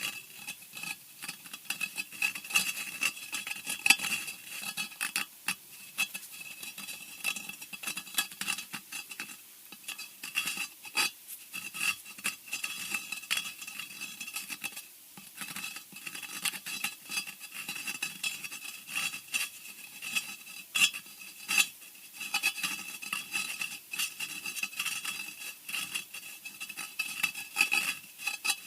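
Scratching sound effect for horror: dense, irregular scratching and scraping with sharp clicks all through, over a faint high ringing tone.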